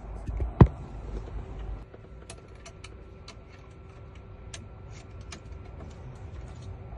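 A sharp click about half a second in, then scattered light ticks and taps over a faint steady hum, from a locksmith handling his key-cutting machine.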